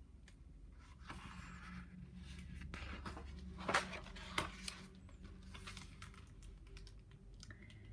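A hardcover picture book being handled and its page turned: faint paper rustling, with two short knocks about halfway through.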